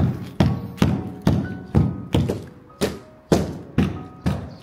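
Steady knocking, about two knocks a second, each deep and dying away quickly, with faint short tones between them.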